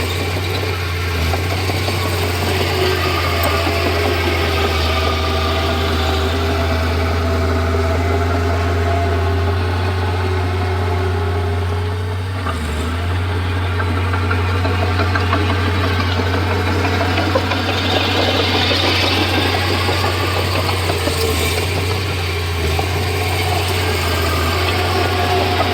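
Komatsu D31P bulldozer's diesel engine running steadily with a constant low hum, its pitch drifting slightly up and down as it works.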